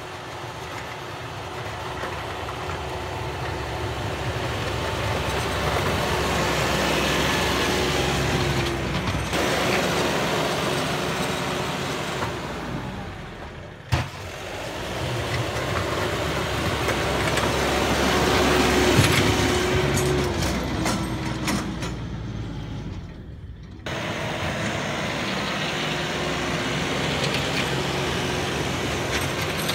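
Kioti compact tractor's diesel engine running while it pushes snow with a front plow blade, growing louder as it comes closer. A sharp click about halfway through and a short dip near the end break the engine sound.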